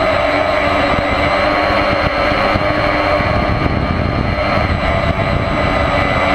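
Electric motor and propeller of a battery-powered model aircraft heard from a GoPro mounted on it in flight: a loud, steady whine over an irregular low rumble of wind on the microphone.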